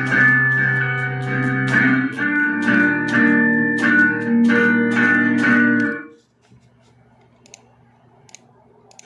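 Electric guitar in E standard tuning picking a riff of ringing notes, about two a second, that stops suddenly about six seconds in. After that only a faint amplifier hum and a few small clicks remain.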